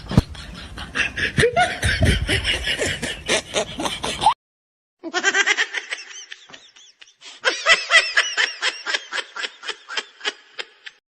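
Two separate clips of people laughing. The first, a noisy, rapid laugh, cuts off abruptly about four seconds in. After about a second of silence a second run of quick, pulsed laughter follows and stops just before the end.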